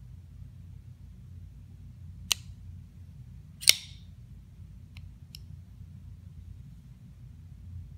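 Rockstead Kou folding knife being worked by hand: two sharp clicks about a second and a half apart, the second the louder as the blade snaps open and locks, then two faint ticks about a second later as the blade is folded shut.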